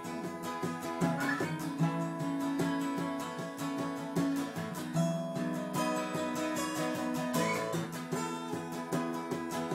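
Two steel-string acoustic guitars strummed together in an instrumental break, playing steady chords with no singing.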